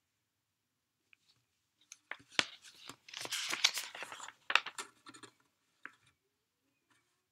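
Close handling noises: a burst of rustling and crinkling with sharp clicks lasting about three seconds in the middle, with a few single clicks before and after.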